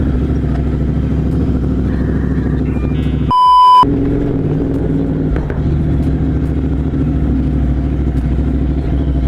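Royal Enfield Continental GT 650's parallel-twin engine, Code6-tuned and fitted with a Moto Torque aftermarket exhaust, running at a steady pitch. About three seconds in, a half-second beep blanks out the engine, the kind of bleep edited in to censor a word.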